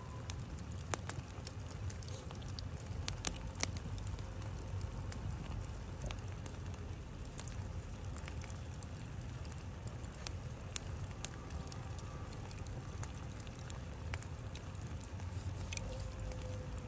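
Charcoal fire burning under foil-wrapped chicken: a steady low rush from the flames with scattered sharp crackles and pops from the embers, a cluster of them about three seconds in.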